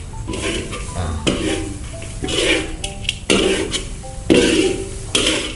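Metal spatula scraping and stirring grated coconut in a steel wok, in strokes about once a second, as the coconut is dry-roasted over a gas burner.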